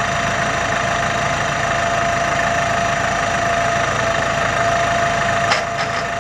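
New Holland T610S tractor engine running steadily. About five and a half seconds in there is a sharp click, after which the engine is a little quieter.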